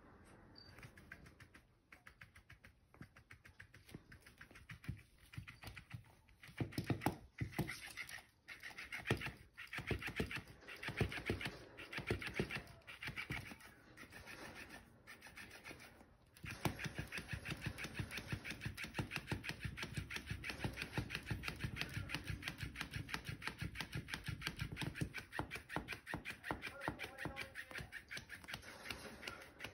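Battery-powered flopping-fish cat toy wagging its tail, its motor running and the tail slapping the tile in a fast, even rhythm. It goes in short bursts through the first half, then runs steadily from about halfway in.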